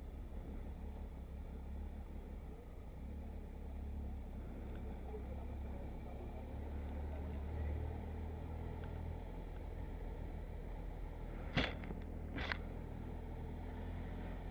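Motorcycle running on the move: a steady low rumble, with two short sharp noises about a second apart near the end.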